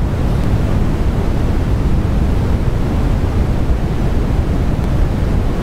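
Steady low rushing noise, loudest in the bass, with no distinct events.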